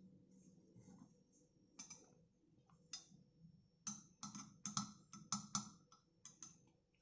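A metal spoon clinking lightly against a glass mug of water: a couple of single clinks, then a quick run of about eight, several a second, about four seconds in.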